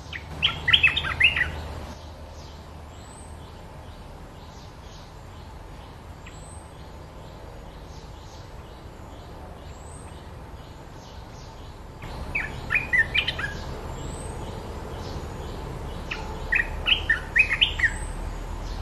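Olive-winged bulbuls singing: three loud bursts of short, quick song phrases, right at the start, about twelve seconds in and near the end, with fainter high chirps repeating every second or so in between.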